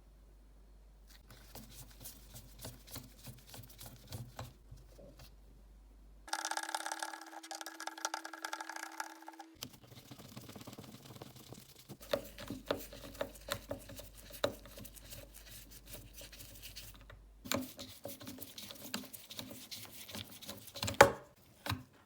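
Small clicks, taps and rubbing of parts and tools being handled during a cordless impact wrench repair, with a loud click near the end. In the middle, a few seconds of a steady whirring tone start and stop abruptly.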